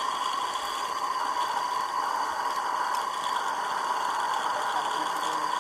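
Steady hiss of the propane burner firing a live-steam model locomotive's boiler, just lit to raise steam.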